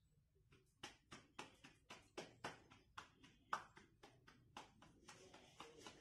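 Roti dough slapped back and forth between the palms to flatten it by hand, a steady run of soft, faint slaps about four a second that starts about a second in.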